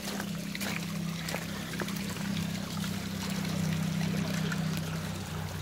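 Water trickling and splashing over a rock waterfall into a pond, with a steady low hum underneath.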